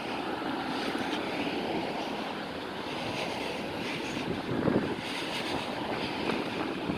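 Cars passing on a nearby road: steady tyre and engine noise, with one car swelling louder about four and a half seconds in.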